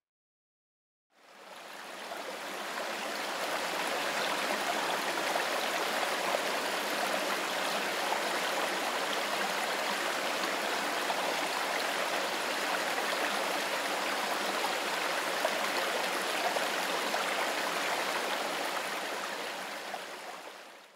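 Steady rush of running water, fading in about a second in and fading out at the very end.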